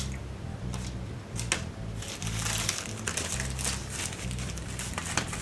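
Plastic bag crinkling as a sealed bag of plastic model-kit sprues is handled, with a couple of sharp plastic clicks in the first half and a denser crinkling from about two seconds in.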